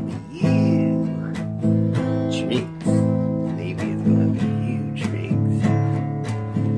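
Background music: acoustic guitar strumming chords, a new strum every half second to a second.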